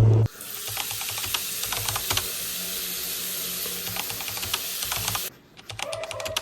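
Rapid, irregular light clicks over a steady hiss, like typing, for about five seconds. After a short break near the end come a few scattered clicks.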